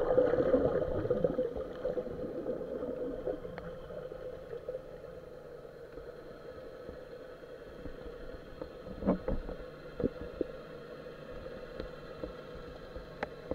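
Muffled underwater sound picked up by a camera in a waterproof housing: water rushing past as it moves over the seabed, louder in the first couple of seconds, under a steady low hum. A few short clicks or knocks stand out about nine, ten and thirteen seconds in.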